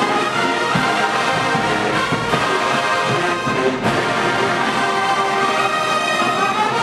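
Large marching band of sousaphones, trumpets and trombones playing held brass chords over bass drums, snares and cymbals, with a few drum hits and a rising brass glide near the end.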